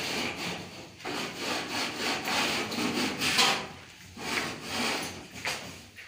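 Rough rasping, rubbing strokes of a hand tool worked against the fibre-cement (Hardiflex) ceiling boards, in an uneven run that is loudest a little past the middle and thins out near the end.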